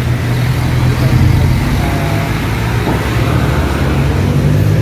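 Street traffic, with a motor vehicle's engine running close by as a steady low hum.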